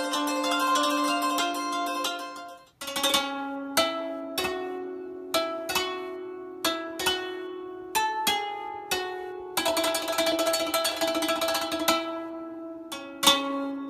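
Salimba, a Philippine plucked string instrument, being played: a dense run of ringing notes breaks off about three seconds in, then single plucked notes follow one by one, each ringing out, with a quick repeated-note passage in the middle.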